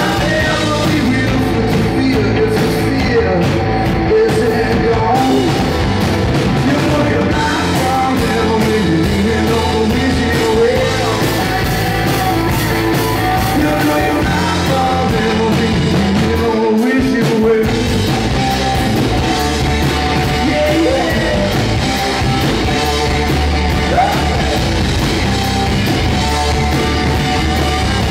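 Live rock band playing: electric guitars, bass guitar and drum kit, with a man singing the lead vocal.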